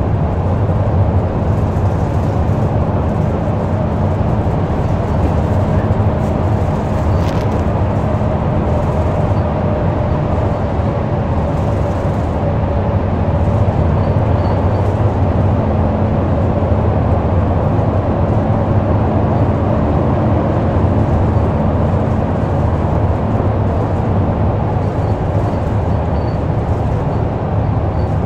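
Ofunato Line BRT bus running steadily along the road, a continuous drone of drivetrain hum and road noise with a mid-pitched tone that drops slightly partway through.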